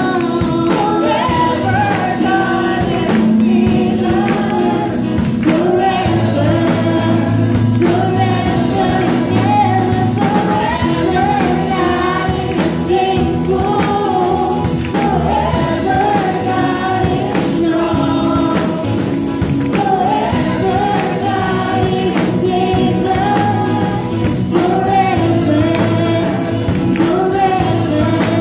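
Live worship band playing a slow praise song: singing carried over acoustic guitar, electric guitar and a drum kit keeping a steady beat.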